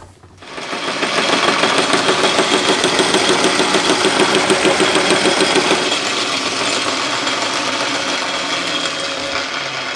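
Metal lathe boring out the inside of a pipe with a boring bar: the machine noise starts within the first second and then runs steadily with a faint high whine, easing slightly about six seconds in.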